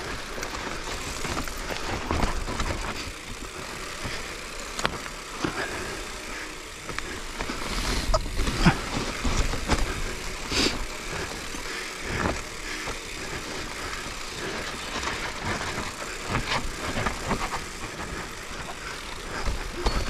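Mountain bike ridden along a forest trail: continuous tyre and rolling noise with a low rumble and irregular knocks and rattles from the bike.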